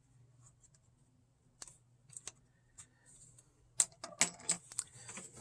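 Small clicks and scrapes of hands handling a laptop's plastic parts during reassembly: sparse at first, then thicker and louder in the last second and a half.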